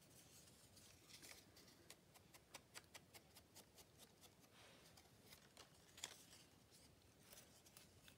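Faint, quick taps and scratches of hand crafting on paper, several a second, with one sharper click about six seconds in.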